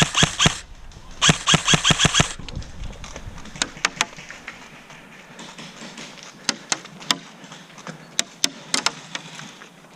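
Airsoft electric gun firing two rapid strings of shots, the second about a second in, followed by quieter scattered single shots.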